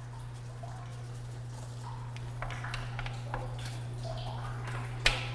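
A steady low hum with a few sharp clicks and knocks of a gloved hand handling plastic valve and pipe fittings in a pump tank; the loudest click comes near the end. Faint short chirps can be heard behind it.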